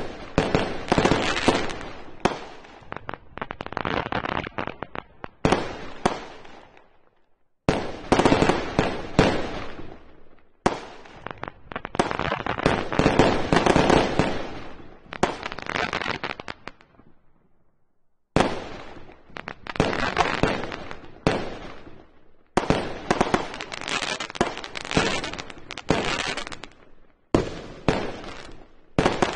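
Fireworks display: aerial shells bursting in rapid volleys of bangs and crackle. Each run of bursts dies away, and the sound breaks off and starts again abruptly at full loudness several times.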